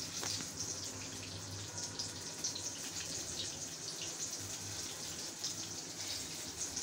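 A crispy, gram-flour-battered stuffed green chilli pakora being bitten and chewed: faint, irregular crunches over a steady hiss.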